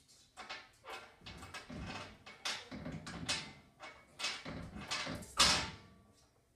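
A small dachshund paws and scratches at a metal pet gate and its latch, giving a run of irregular scraping and knocking strokes, the loudest about five seconds in.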